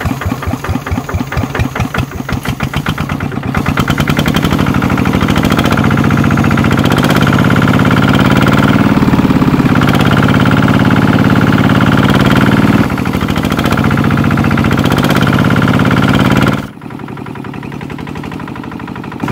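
The mini power tiller's motor runs with a fast, even chugging rhythm. It grows louder about four seconds in, then drops sharply in level about three seconds before the end.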